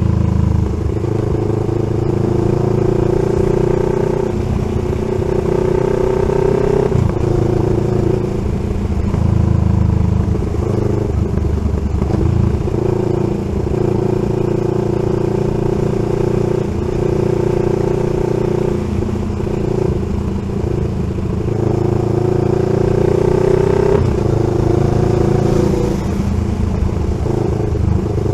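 CFMoto 700 CL-X Sport's parallel-twin engine through an SC-Project slip-on exhaust, the bike being ridden: the exhaust note climbs steadily in pitch through each gear and drops back at each shift, several times over.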